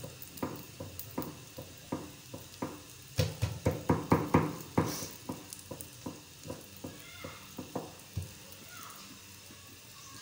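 Paratha cooking on a hot tawa, sizzling with irregular crackling pops that come thickest and loudest about three to five seconds in, then thin out.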